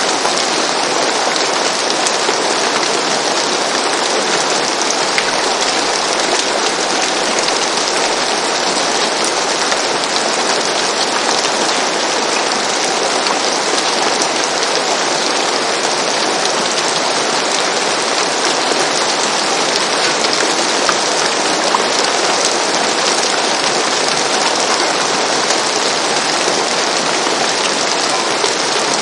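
Steady rain falling on a roof, an even, unbroken wash of sound with the odd single drop standing out.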